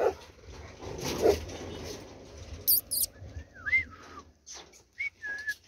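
A dog in a wire-mesh kennel whining: a few short, high, wavering whines about midway and again near the end, over the scuff of footsteps on the path.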